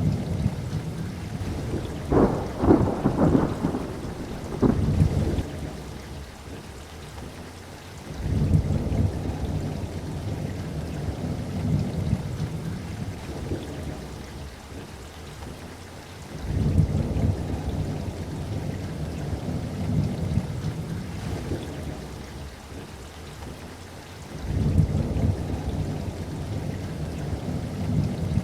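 Thunderstorm: steady rain with rolling thunder. A sharp, crackling thunderclap comes a couple of seconds in, and new low rumbles of thunder swell up three more times, about every eight seconds.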